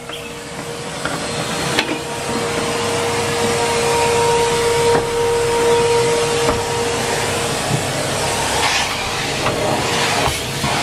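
Numatic Henry Pet cylinder vacuum cleaner running, a steady rushing suction noise with a motor whine that fades about three quarters of the way through. A couple of light clicks occur in the first half.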